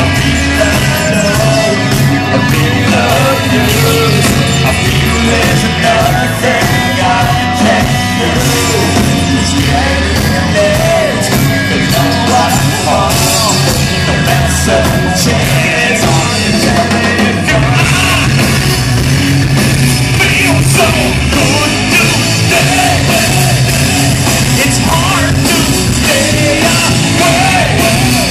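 Rock band playing loud live, with two singers on microphones over electric guitar, drums and keyboards.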